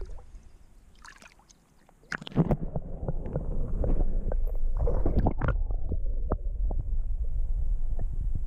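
Water sloshing and gurgling around a camera held underwater, heard muffled and rumbling, with irregular knocks as the camera and hands move in the water; it starts about two seconds in, when the camera goes under.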